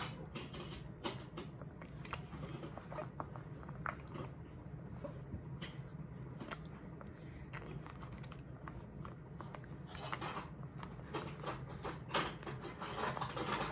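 Light scattered clicks and taps of a baby-food spoon and dishes over a steady low hum.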